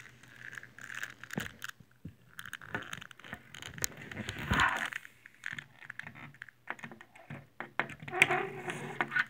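Handling noise: rustling with scattered clicks and taps, loudest about four and a half seconds in and again shortly before the end.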